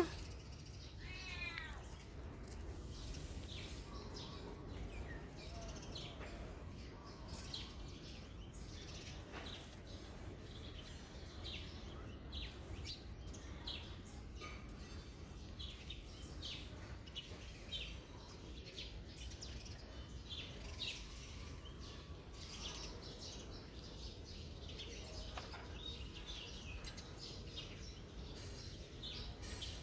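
A cat meowing in the first couple of seconds, with a fainter call a few seconds later. After that come short, faint high ticks and chirps over a steady low background noise.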